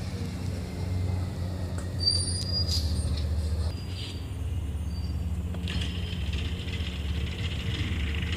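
Autocar ACX garbage truck with a McNeilus ZR body, its natural-gas engine running with a steady low drone. Brief high squeals come about two to four seconds in, and a hiss starts about six seconds in.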